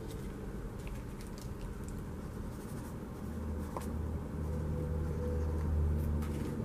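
Light scratching and small taps of a wet-glue applicator tip drawn over the back of a die-cut cardstock flower, with some paper handling. A low steady hum grows louder about four seconds in.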